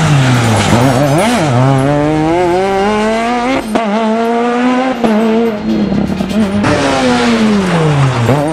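Rally car engines at a hairpin, one car after another. The engine note drops steeply as each car brakes into the bend, jumps in a quick rev blip on the downshift, then rises and holds as the car accelerates away.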